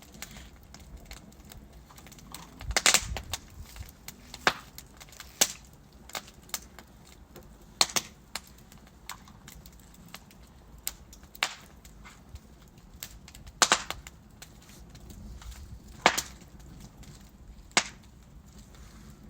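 Wood fire of burning logs crackling, with irregular sharp pops and snaps every second or two over a low, steady hiss.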